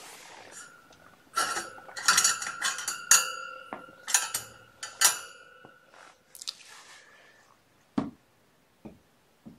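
A dish clinking several times in quick succession, each knock ringing briefly, for about four seconds, then two soft knocks near the end.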